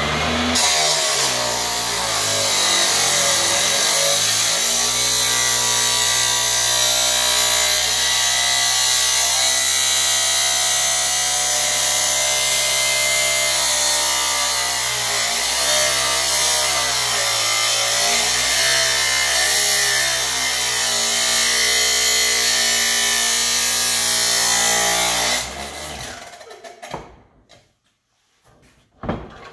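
Porter-Cable cut-off saw cutting through metal tubing, a steady motor whine under a harsh grinding hiss, its pitch sagging and recovering several times as the blade bites. Near the end the saw is switched off and winds down.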